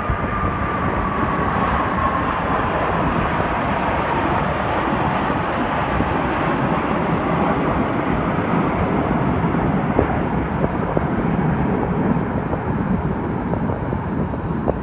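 Jet engines of a large formation of military fast jets passing and moving away, a steady rushing jet noise with a faint whine that falls in pitch over the first few seconds.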